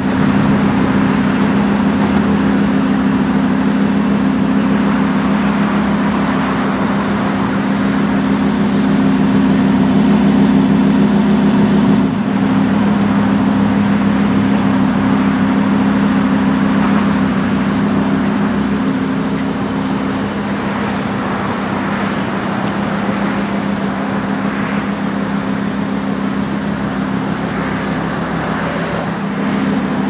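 Lamborghini Huracán's 5.2-litre V10 idling steadily, with a constant even drone and no revs.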